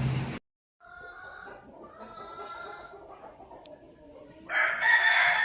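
Chickens clucking, then a rooster crowing loudly once near the end. At the very start a steady machine hum cuts off abruptly.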